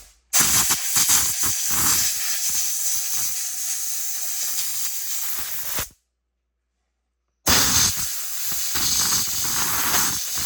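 A pressurised jet hissing over a Husqvarna 460 Rancher chainsaw as it is blown clean. The hiss runs for about six seconds, cuts off dead, and comes back a second and a half later.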